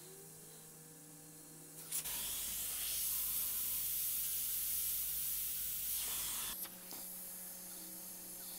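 Iwata airbrush spraying white paint in one steady hiss of about four and a half seconds, starting about two seconds in and stopping with a click at each end.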